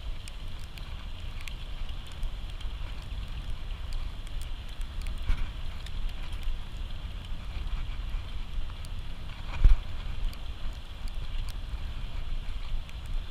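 Wind buffeting the microphone as a steady low rumble under a constant hiss, with scattered small clicks and one sharp knock about ten seconds in.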